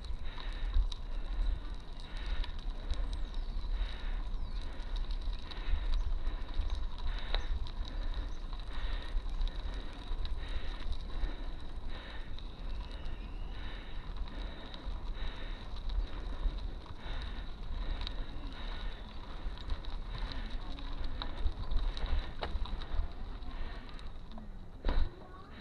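Bicycle being ridden slowly on a paved lane, with tyre and wind rumble on the camera microphone and a faint pulse about once a second. A short knock comes near the end as the bike slows to a stop.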